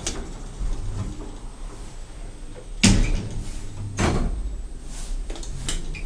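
Elevator sliding doors, with two sharp knocks about a second apart near the middle and a few lighter clicks, over a low steady hum.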